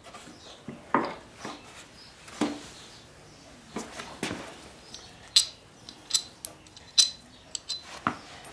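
Metal hand tools and screws clinking and clicking irregularly during reassembly of a small engine, with a few sharper ringing metallic clicks in the second half.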